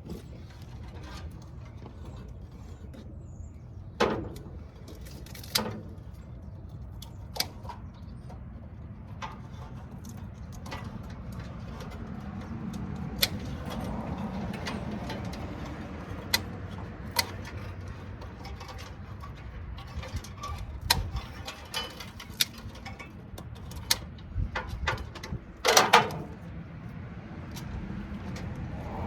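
Scattered clicks and clanks of metal parts and hand tools being handled while parking lot light fixtures are stripped for scrap. A louder cluster of knocks comes near the end, over a steady low background.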